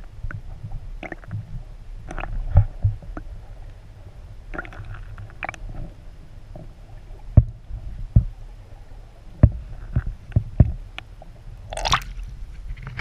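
Water sloshing and gurgling heard through an underwater camera's housing: a low rumble with scattered sharp knocks, and a splashy rush near the end as the camera breaks the surface.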